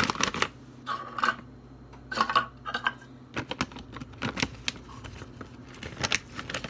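A plastic pouch of dried cranberries being handled and crinkling, with irregular clicks and taps.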